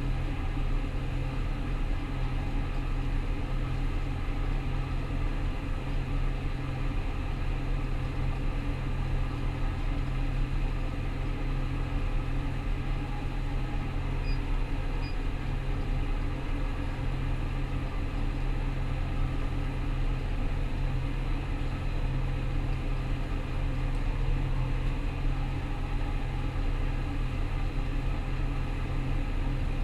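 Rostselmash Vector 425 combine harvester running steadily while harvesting wheat: a constant low drone of engine and threshing machinery with no change in pace.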